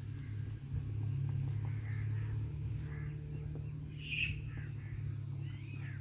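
A few short, faint bird chirps, the clearest about four seconds in, over a steady low hum.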